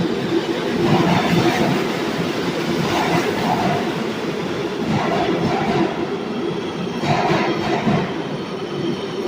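New York City subway B train pulling out of the station: steady rumbling wheel and rail noise with some wheel squeal, and a clack from the wheels over the rail joints about once a second.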